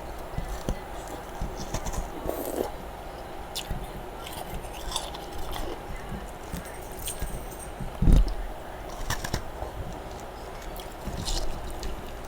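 Freezer frost being bitten and chewed close to the microphone: irregular crisp crunches and crackles, with one heavy low thump about eight seconds in.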